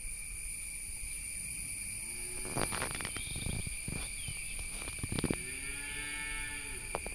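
Steady shrill drone of an insect chorus, several high tones held throughout. Over it an animal gives two long, drawn-out calls, one about two seconds in and a longer one about five seconds in, with a few sharp knocks around them.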